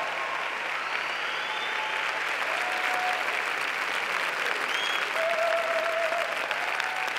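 A large theatre audience applauding steadily, with a few short cheers heard above the clapping.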